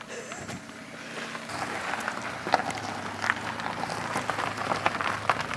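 Footsteps crunching on loose gravel, an irregular run of short crackles, with a faint low hum coming in about a second and a half in.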